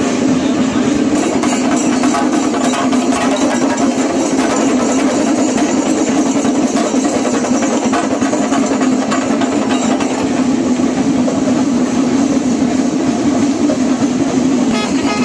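Loud, unbroken festival drumming and cymbal clashing from a Kerala temple percussion ensemble, blended with the noise of a packed crowd.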